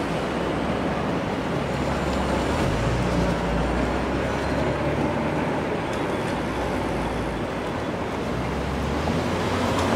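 Steady street traffic and road noise heard while riding an electric bike along a city bike lane, with a low rumble that swells about three seconds in and fades again after about seven.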